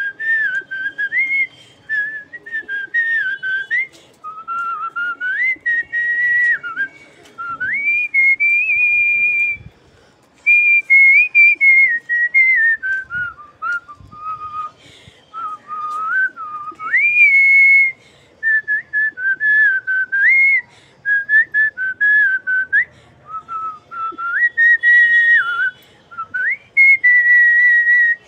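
A woman whistling a tune through pursed lips: a single clear melody line in phrases, sliding up and down between notes, with short pauses between phrases.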